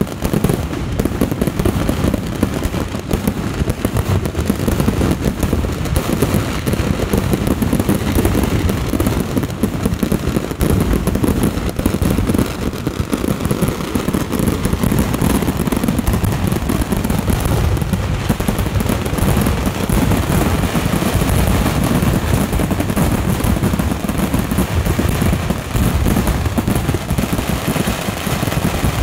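Kerala temple fireworks (vedikkettu) going off in an unbroken, dense barrage: explosions follow each other so fast that they run together into one continuous rattle, with no pause.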